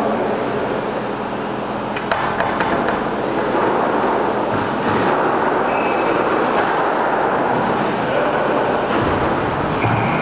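Squash ball knocked by a racket and off the court walls, a few sharp knocks, over a steady hiss.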